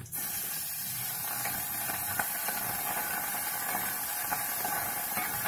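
Steady loud hiss from the stove-top cooking, starting suddenly with a few faint crackles in it.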